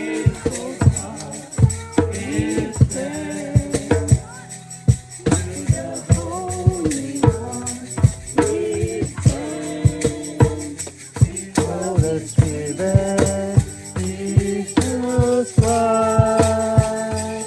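Christian praise and worship song: singing over music with a steady beat of hand percussion.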